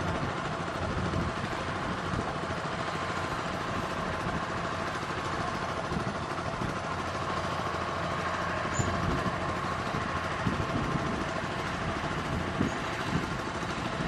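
Kubota DC-93 rice combine harvester running steadily under load while cutting and threshing, its diesel engine and threshing machinery making a continuous drone with a steady whine. A few short clatters stand out in the second half.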